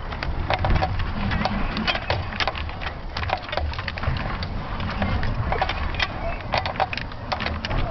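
Rumbling wind noise on the microphone of a camera hanging beneath a high-altitude balloon payload in flight, with rapid, irregular clicks and crackles from the payload rattling and creaking.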